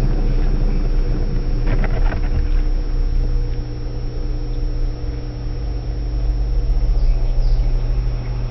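Electrolux washing machine running its spin, a steady low hum with a brief patch of light rattling about two seconds in.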